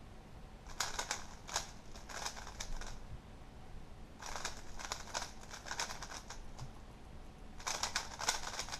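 3x3 speed cube being turned fast by hand: rapid plastic clicking and clacking of the layers in three runs of about two seconds each, with short pauses between them.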